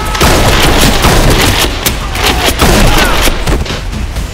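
A rapid volley of gunfire sound effects, shots coming several a second, loud throughout.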